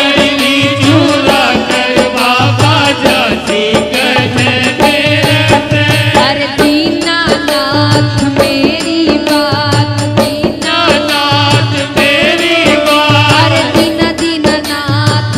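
A woman singing a Hindi devotional bhajan with instrumental accompaniment and a regular low drum beat.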